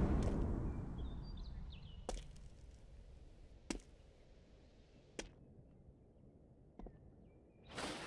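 Music fading out into a quiet room with faint bird chirps, then four sharp single taps spaced about a second and a half apart, and a brief rustle near the end.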